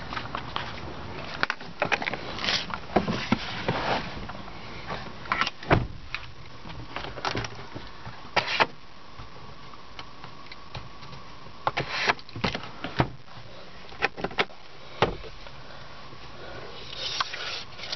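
Scattered sharp plastic clicks and knocks of a 2009 Subaru Forester's interior trim being handled, such as the sun visor and the glove box lid, over a steady low background.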